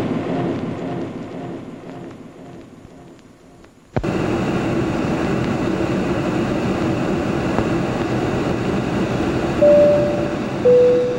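A logo sting fades out over the first few seconds. It is cut off by the sudden start of a steady airliner-cabin rumble in flight. Near the end come two short chime tones, the second lower than the first.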